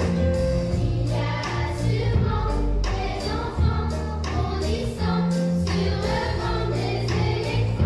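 A large choir of children and adults singing together, accompanied by a live band of keyboard, guitar and drums keeping a steady beat.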